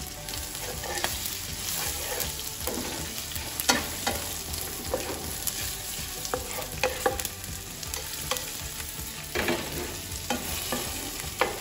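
Stir-frying salted anchovies, shallots and chilies in a frying pan: a steady sizzle under the scraping of a wooden spatula, with irregular knocks of the spatula against the pan about once a second.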